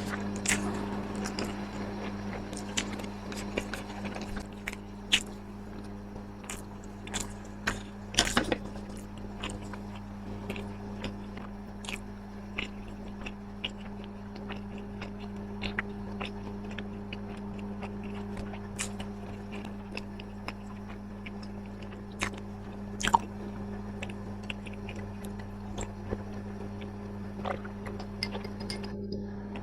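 Close-miked chewing and biting of food, with scattered sharp crunches, the loudest about eight seconds in and again near twenty-three seconds, over a steady low hum.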